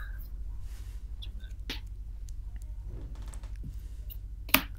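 Trading cards being handled and set down on a play surface during a damage check. There are soft rustles and a light click, then one sharp snap of a card near the end, over a low steady hum.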